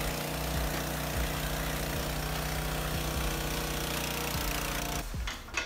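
Pressure washer running: a steady pump motor hum with the hiss of the water jet spraying against the engine block, stopping about five seconds in.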